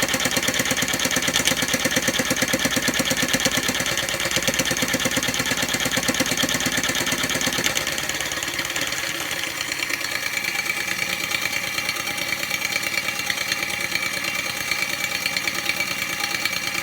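Homemade mini scroll saw running: a geared DC motor turns a crank that drives the blade arm up and down in a rapid, even clatter. About halfway through, the lower part of the sound drops away and the rattle goes on lighter.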